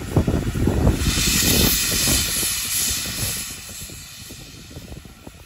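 Small tank steam locomotive venting steam from its open cylinder drain cocks: a loud hiss that starts about a second in, peaks, then dies away over the next few seconds. Low gusty rumble of wind on the microphone runs underneath.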